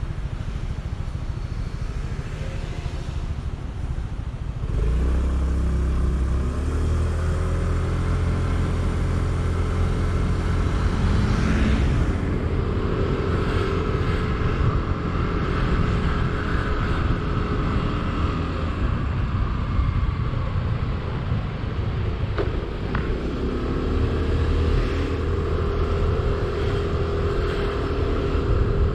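Yamaha Neo automatic scooter's single-cylinder engine on the move. It runs quietly at first, then about five seconds in it speeds up with a rising engine note and low rumble. It holds a steady note while cruising, eases off a little past twenty seconds and picks up again.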